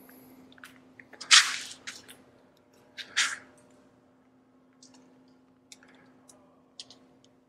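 Putty knife dragged through wet epoxy on a countertop: two short squishing scrapes, about one and three seconds in, the first the louder, then a few faint ticks over a low steady hum.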